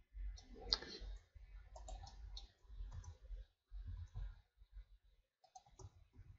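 Faint, irregular clicking of a computer mouse and keyboard keys as they are pressed.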